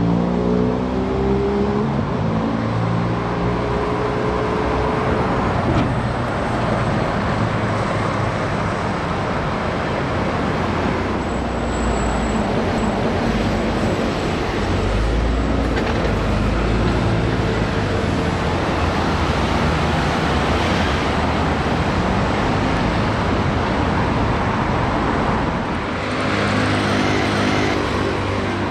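Road traffic with Wright New Routemaster hybrid double-decker buses driving past. An engine note rises over the first few seconds, and another comes in near the end.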